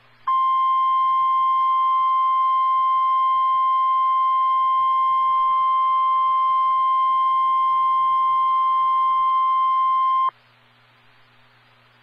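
NOAA Weather Radio's 1050 Hz warning alarm tone: one steady high beep held for about ten seconds, starting abruptly and cutting off sharply, with faint receiver hiss and hum before and after. The tone signals that a warning message follows, here a severe thunderstorm warning.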